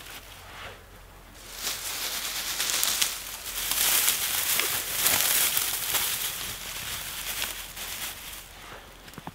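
Dry grass rustling and crinkling as an armful of it is handled and piled onto a small fire, loudest from about two to six seconds in with many small crackles, then easing off.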